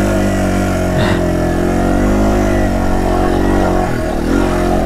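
Yamaha TW200's single-cylinder four-stroke engine running under way on the trail, its note wavering slightly, with a short knock about a second in and a brief dip in engine pitch about four seconds in.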